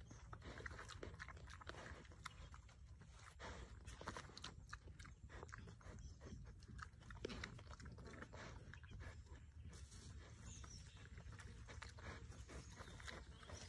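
A young wild boar chewing and crunching food off the ground, with many quick, irregular crunches.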